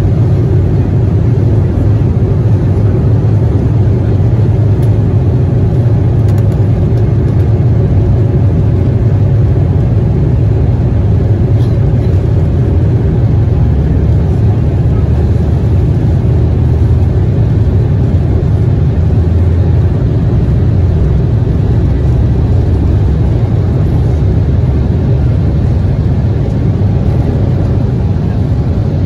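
Steady low roar in the cabin of an Embraer E190 airliner, from its two GE CF34-10E turbofan engines and the rushing air, with a faint steady hum above it.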